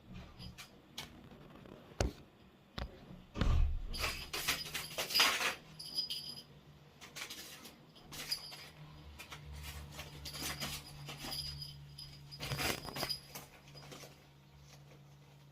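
A sheet of paper rustling and scuffing in bursts, with a few sharp taps, over a faint steady low hum.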